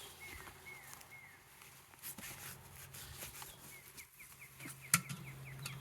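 Steady low hum of a package of Italian honeybees, a healthy-sounding colony. Small birds chirp short falling notes over it, with a quick run of chirps near the end, and a sharp knock comes about five seconds in.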